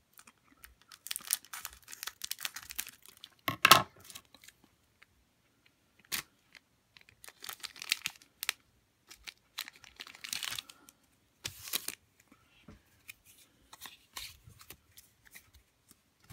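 Foil wrapper of a Pokémon card booster pack crinkling and rustling in short, irregular bursts as it is cut open with scissors and the cards are pulled out and handled. A sharp crackle about four seconds in is the loudest sound.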